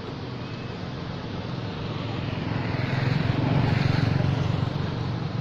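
A motor vehicle passing by, its low engine hum growing louder about halfway through, then fading.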